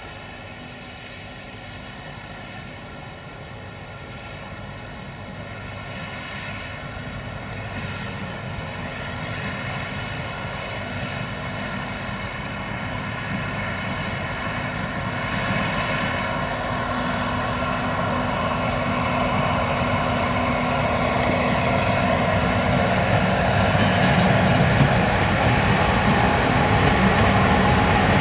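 Electric freight locomotive, a Romanian 060-EA (LE 5100 kW) class, running under power on its approach. It makes a steady drone with a stack of whining tones over a low rumble, growing steadily louder as it comes closer.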